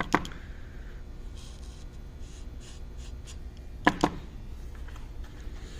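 Metal exhaust tubes handled and test-fitted: light clicks and soft scraping, with one sharp double knock about four seconds in.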